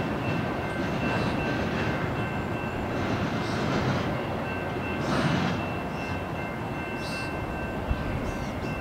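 Rumble of a freight train's autorack cars rolling away on the rails, easing off a little after about five seconds as the tail end recedes, with a thin steady high whine.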